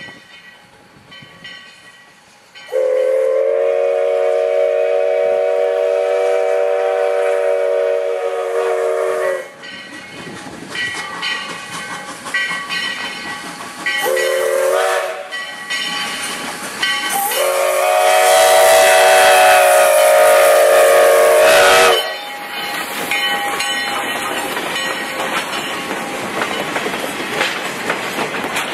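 Steam whistle of a 1907 Baldwin 2-6-0 steam locomotive sounding for a grade crossing: a long blast, a short one, then another long one, each several notes at once. After the last blast the wooden coaches roll past with a steady clickety-clack of the wheels.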